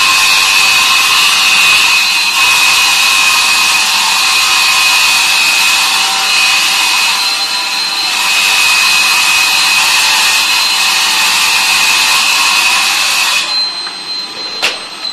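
Small benchtop table saw cutting an SPC rigid-core vinyl floor plank: a loud, steady cutting noise with a high whine from the blade. The cutting stops about a second and a half before the end, followed by a single sharp click.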